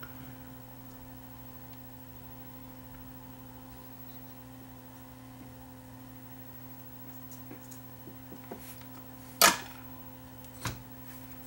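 Steady low electrical hum under quiet room tone, with a few faint clicks and then two sharp taps, the first about nine and a half seconds in and the second a second later, from handling the metal cassette-deck mechanism and its capstan motor while the motor leads are soldered.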